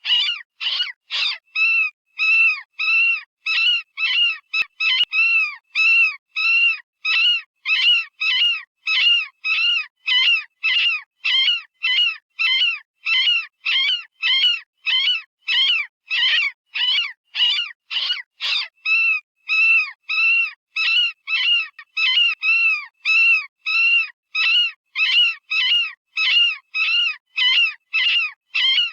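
Software-generated rabbit distress call, not a real rabbit: a long, even series of short, shrill screams, about two a second, each rising and falling in pitch. This is the sound of a rabbit in pain or fear, as used in predator calling.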